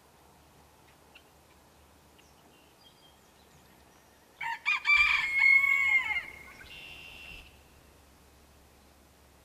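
A rooster crows once, starting about four and a half seconds in: a loud call of under two seconds that falls in pitch at the end. A fainter, higher call follows briefly, and a few faint bird chirps sound over quiet outdoor background.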